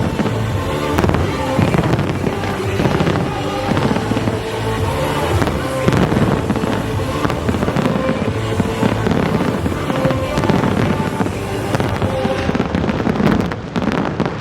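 Fireworks bursting and crackling in quick succession, many bangs overlapping, over loud show music.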